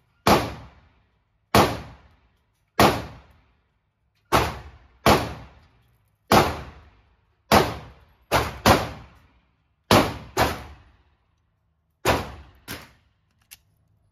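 Smith & Wesson M&P pistol firing 124-grain Norma rounds: about thirteen shots, roughly one a second with uneven spacing and one quick double, each crack ringing briefly off the indoor range's walls.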